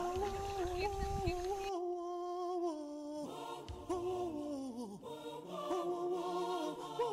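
Background music: a cappella voices singing a chant-like song in long held notes that slide gently between pitches. A low rumble lies under the singing and stops about two seconds in.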